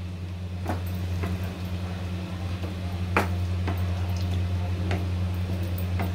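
Wooden spatula stirring a watery potato and aubergine curry in a metal kadhai, with a few sharp knocks of the spatula against the pan, over a steady low hum.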